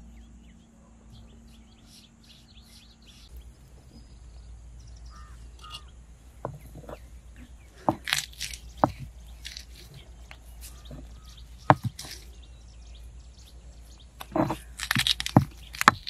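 Crows calling faintly in the background. A few sharp knocks follow, then about two seconds before the end a rapid, loud run of crunching and scraping as garlic is crushed on a stone grinding slab.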